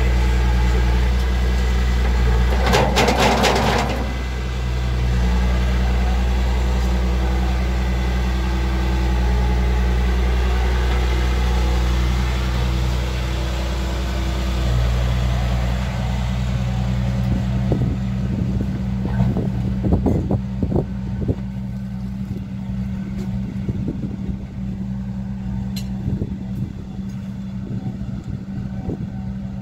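A motor running steadily with a low, even hum. Scattered light clicks and knocks come in the second half.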